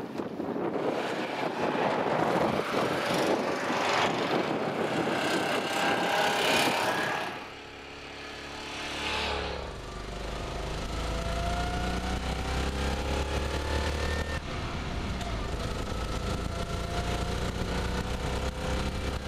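Wind noise on the microphone mixed with small engines running, then the inside of a moving BMW Isetta: its single-cylinder engine gives a steady low drone with a whine that rises in pitch as it pulls, drops once partway through and climbs again.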